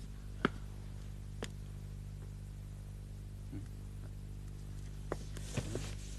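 Two footsteps on a hard floor in the first second and a half, the end of a walk. After them a steady low electrical hum, with a faint click and a brief rustle near the end.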